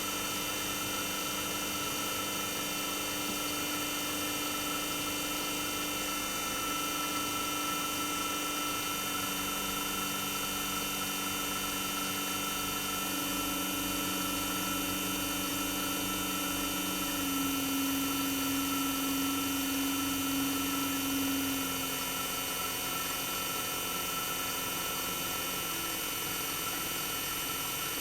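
Toshiba twin rotary inverter compressor of a RAS-285LADR air-conditioner outdoor unit running, heard raw with its sound insulation removed: a steady hum with several high whining tones. The lower tone steps to a new pitch a few times, about a third of the way in, near the middle and again near the end, as the inverter changes the compressor's speed, and it gets a little louder for a few seconds after the middle.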